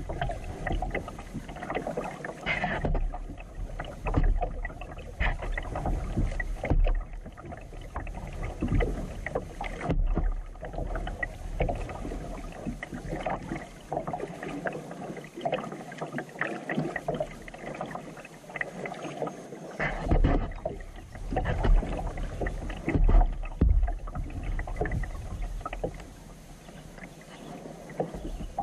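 Kayak paddling on calm water: irregular splashes and drips from the paddle strokes, quieter for the last couple of seconds.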